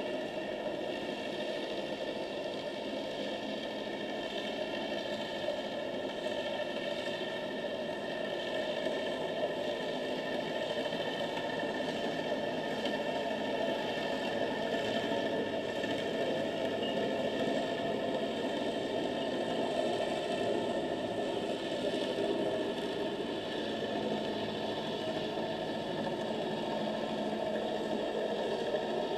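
Steady underwater noise picked up by a camera on the seabed: a continuous engine-like drone and hiss with no sudden events.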